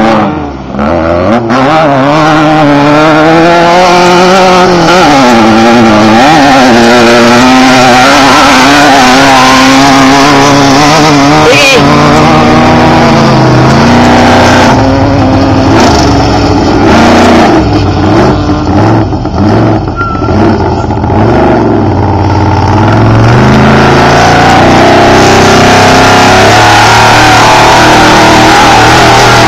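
Loud off-road race vehicle engines revving, the pitch rising and falling again and again as they accelerate and change gear.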